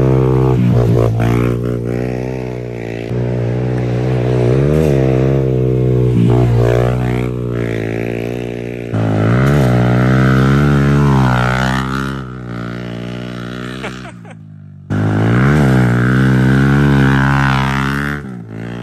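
Small dirt bike engine running hard, its revs dipping and climbing back up several times as the rider rolls off and gets back on the throttle through the corners.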